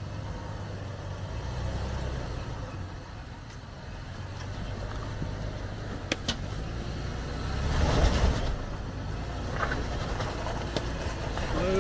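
Toyota 4Runner's engine running at low revs as the SUV crawls slowly over rock ledges, with a louder surge of engine and tyre noise about eight seconds in.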